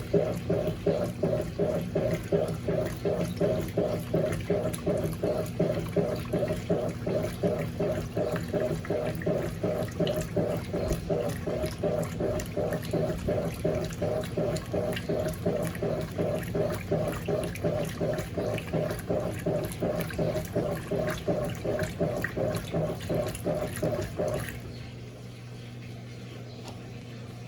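Top-loading washing machine (Electrolux LAC16 fitted with a 1/4 hp WEG motor) agitating: water sloshing in a steady rhythm of a few strokes a second over a low motor hum. About 24 seconds in, the agitation stops and only a quieter steady hum remains.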